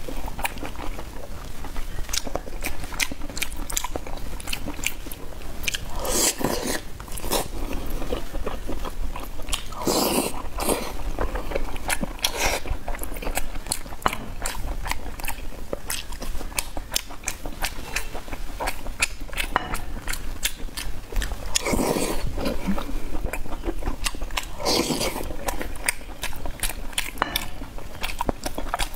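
Close-up mukbang eating sounds: a person biting and chewing food with many small wet clicks and crunches, plus four louder, longer noisy swells spread through.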